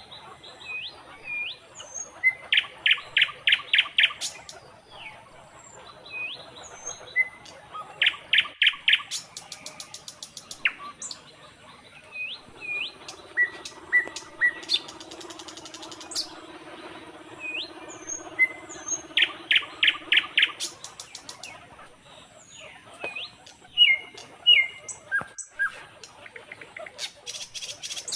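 Birds calling: quick runs of sharp chirps and short whistled notes that dip and rise, repeating throughout. A faint low hum runs for several seconds in the middle.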